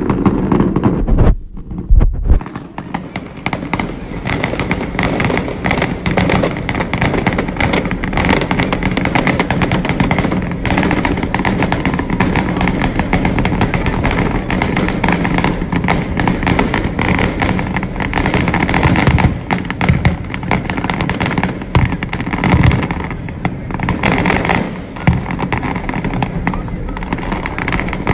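Fireworks going off in quick succession, a dense, continuous stream of cracks and bangs, heard from inside a car.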